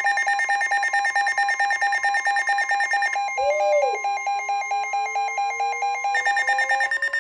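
Weather alert radios sounding a severe thunderstorm warning: rapid electronic alarm beeping in two pitches over a steady warning tone. The higher beeping stops for about three seconds midway, then comes back.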